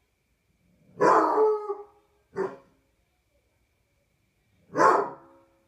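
Basset hound baying: three loud calls, the first drawn out for nearly a second about a second in, a short one a moment later, and another near the end.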